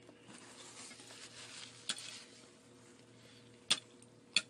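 Metal spoon and dinner plate: a faint soft scraping of food for about two seconds, then two light clinks of cutlery on the plate near the end.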